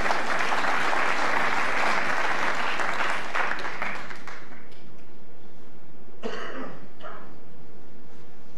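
Snooker arena audience applauding a shot, the clapping fading out after about four seconds. A short cough from the crowd comes about six seconds in.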